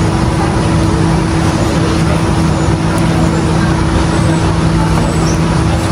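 A loud, steady machine drone: an even rush with a low, constant motor hum that does not change.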